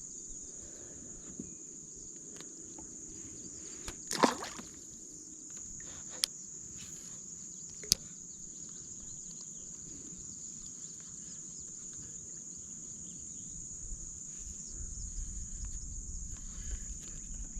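Steady high-pitched drone of crickets or other insects calling. A few sharp knocks cut through it, the loudest about four seconds in and two smaller ones about six and eight seconds in.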